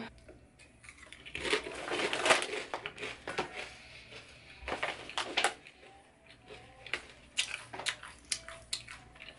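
Close-up crunching of kettle-cooked potato chips being chewed: irregular crisp crunches coming in clusters.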